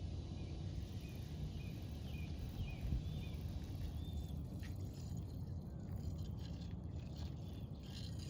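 Wind rumbling on the microphone, with a small bird chirping short repeated notes for the first few seconds, then a few faint irregular clicks.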